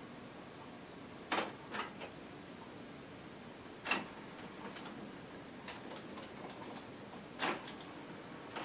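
Pioneer CT-M6R six-cassette changer's tape transport clicking about four times while it fast-rewinds to seek the next song in random play, over a low steady hiss and with no music playing.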